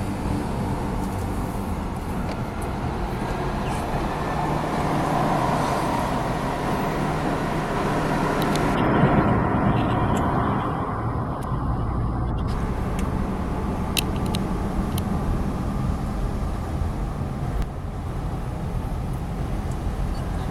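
Car driving, its engine and tyre noise heard from inside the cabin, swelling slightly about halfway through.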